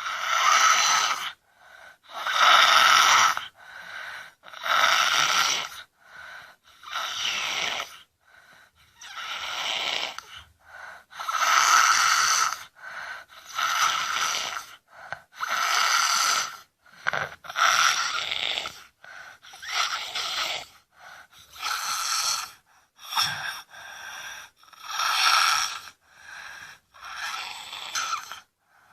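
A sleeping child snoring heavily, with a noisy sound on each breath in and out that repeats every second or two.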